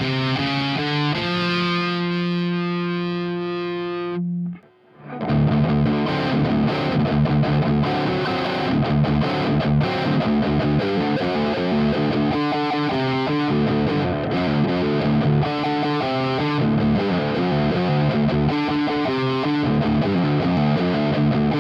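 Distorted electric guitar riffs from an Epiphone 1959 Les Paul Standard played through an Orange Terror Stamp amp pedal: a few quick notes, then a chord left ringing for about three seconds. After a short gap about five seconds in, riffing starts again through a Friedman BE mini amp head and runs on with rapid note changes.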